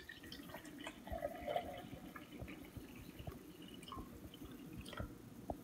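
Water being poured from a glass measuring cup into a tall drinking glass, a faint trickle as the glass fills, with a few light clicks near the end.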